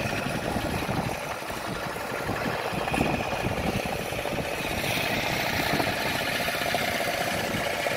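A wooden passenger boat's motor running steadily, with a dense low rumble.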